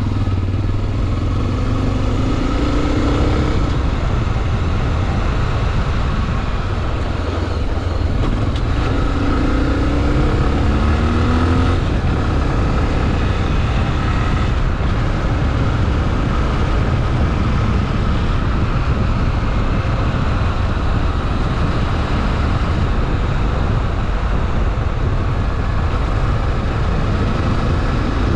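Honda XRE 300 Rally's single-cylinder four-stroke engine running under way, under a steady rush of noise. The engine pitch rises and falls briefly about three seconds in and again around ten seconds in.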